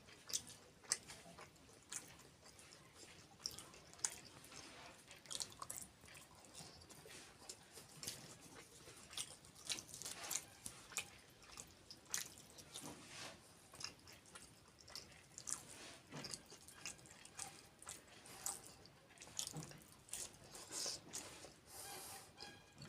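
Close-miked eating: a person chewing kheer and puri with wet mouth clicks and lip smacks, irregular and several a second.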